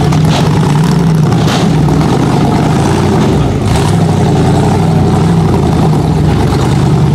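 Rock bouncer buggy's engine running hard and revving as it crawls over boulders, its revs rising and falling, with a few brief sharp noises near the start and around four seconds in.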